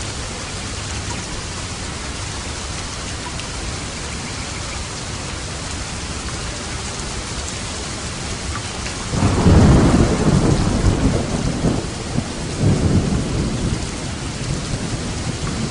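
Steady heavy rain falling on a roof. About nine seconds in, a thunder rumble breaks in suddenly and becomes the loudest sound for a few seconds, then swells again briefly before fading back under the rain.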